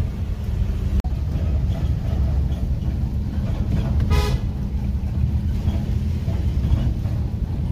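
Force Gurkha SUV's diesel engine and road noise, a steady low rumble while driving. A short horn toot comes about four seconds in.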